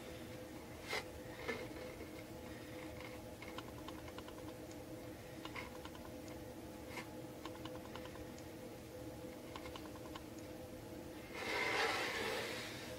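Faint scattered clicks and taps of hands gluing jute twine onto a wooden board with a hot glue gun, over a faint steady hum. A brief rustle near the end.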